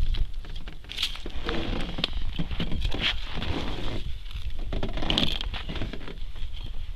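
Irregular rustling and crunching handling noises as an ice angler works a short ice-fishing rod and line over a hole in the ice, over a low wind rumble on the microphone.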